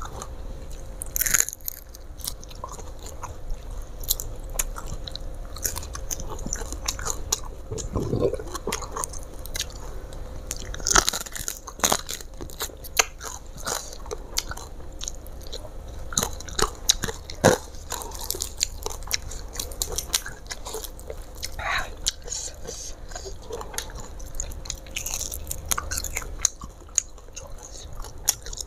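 Close-up eating sounds: chewing and biting into crispy fried tilapia with rice, with scattered sharp crunches.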